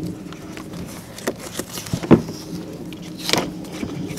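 Handling noises from a headlight assembly and its wiring being worked by hand: scattered rustles and short plastic clicks, the sharpest about two seconds in and a longer rustle a little after three seconds. A steady low hum runs underneath.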